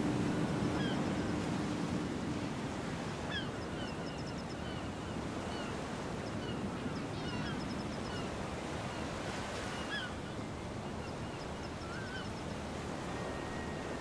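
Beach ambience: ocean surf washing in steadily, with small birds chirping over it. A low steady hum sounds for the first few seconds and then fades.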